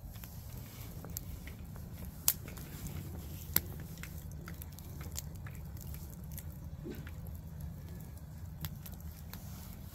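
Bonfire crackling and popping with scattered sharp snaps, two louder pops in the first few seconds, over a low steady rumble.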